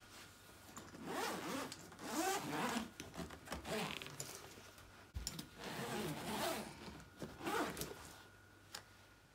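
Zip on a fabric tool bag being pulled along in about five long strokes, with a low thump about five seconds in.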